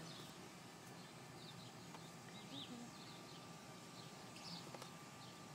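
Near silence in a stationary car, with a few faint, short bird chirps.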